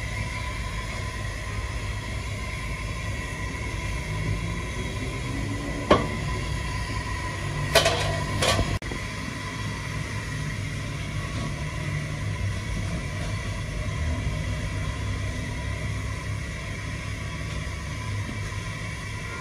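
Steady low rumble from the steaming, quilt-wrapped cooking setup. A metal ladle knocks sharply once about six seconds in and twice more around eight seconds.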